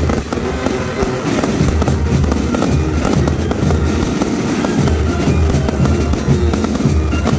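A fireworks display: many crackles and bangs in quick succession, with music playing along.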